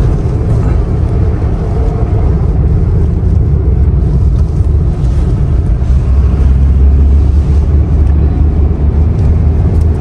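Steady deep rumble of a road vehicle on the move, heard from on board.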